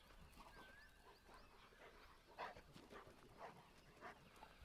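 Faint dog barking: a few short barks about half a second apart in the second half, with bird chirps early on.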